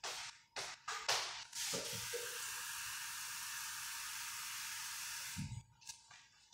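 Water running steadily from a kitchen tap for about three and a half seconds, to fetch water for the meat, then cutting off; a few light clicks come before it and a dull thump just after it stops.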